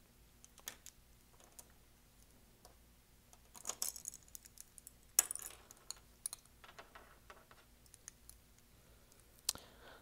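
Scattered light clicks, taps and clinks of a clear palette plate and painting things being handled and set down on a table. A cluster comes about three and a half seconds in, and the sharpest clicks come about five seconds in and near the end.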